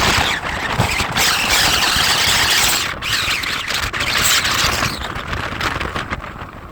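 Hurricane-force wind of about 111 km/h gusting against the microphone: a loud rushing that briefly dips twice and eases off after about five seconds.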